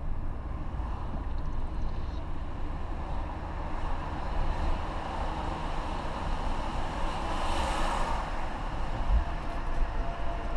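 Steady road and engine rumble of a moving car heard from inside the cabin, with a louder rush of noise about seven to eight seconds in while driving through a road tunnel.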